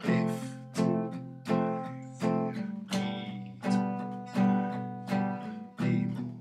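Acoustic guitar strummed in even single strokes, about one chord every three-quarters of a second, each left to ring: the simple beat-by-beat accompaniment to the A minor–F–G–E minor progression.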